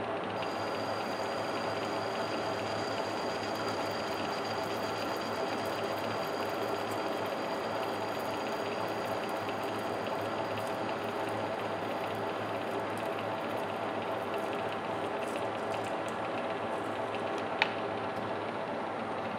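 Metal lathe running steadily, its spindle and gearing whirring with a few steady tones, while a hand deburring tool is held against the spinning metal workpiece. A single sharp click near the end.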